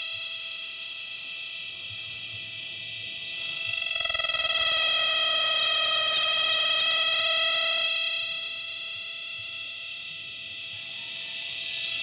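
Cicada's mating call: a loud, unbroken high buzz held on one steady pitch. It swells louder about four seconds in, eases off again around ten seconds, then rises once more near the end.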